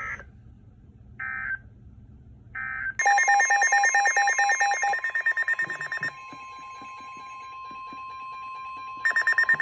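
Emergency Alert System signalling from a weather radio broadcast. It opens with three short electronic data chirps about a second and a half apart. About three seconds in, a loud pulsing electronic alert starts beeping over a steady single-pitch attention tone, which holds almost to the end. The beeping returns near the end.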